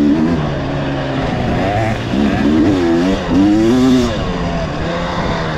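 Off-road vehicle engine revving up and down several times, its pitch rising and falling in quick swells, over a steadier lower engine note.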